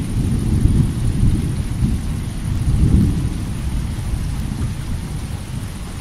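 Rolling thunder rumbling low over steady rain, swelling about a second in and again about three seconds in, then easing off. A steady high chorus of crickets runs underneath.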